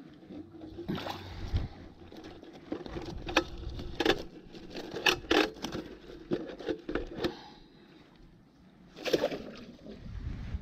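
A caught mullet is handled into a wire-mesh keep net, giving a run of sharp metallic clinks and rattles in the middle. Near the end comes a splash as the net goes back into the water.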